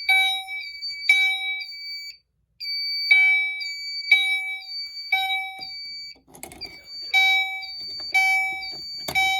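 Fire alarm horns sounding the temporal-three evacuation pattern: groups of three half-second blasts a second apart, a pause after each group, over a steady high tone. A few loud knocks near the end.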